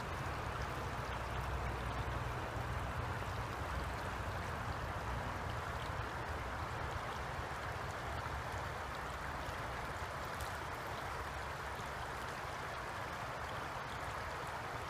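Steady rush of a creek's flowing water around rocks, with a low rumble underneath.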